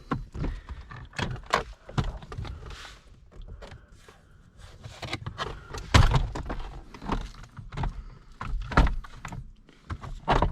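Plastic steering-column trim panels being handled and knocked against the column: a string of irregular clicks and knocks, the loudest about six seconds in.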